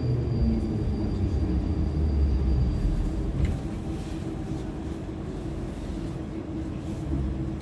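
Rumble of an 81-726.1 "Baltiets" metro train heard from inside the car as it slows along the platform to stop at a station. A thin high whine fades out about three seconds in.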